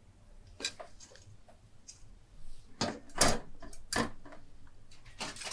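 Plastic model kit sprues being handled: a series of clacks and knocks with some rustling, the loudest about three seconds in.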